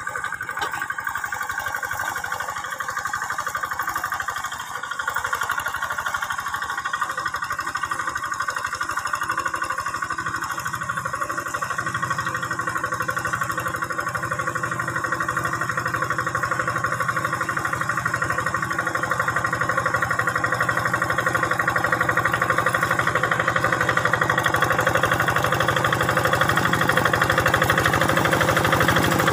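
Quick G600 two-wheel hand tractor's single-cylinder diesel engine running steadily while it ploughs a flooded rice paddy. It grows gradually louder as the tractor comes closer.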